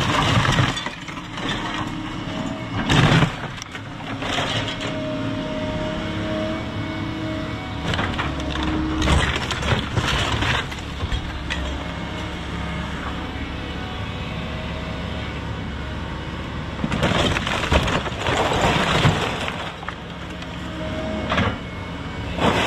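An excavator's diesel engine runs steadily while its bucket and thumb break up and drop wood framing, sheet metal and building debris. Several bursts of cracking and crashing come right at the start, about three seconds in, around nine to ten seconds and again from about seventeen to nineteen seconds.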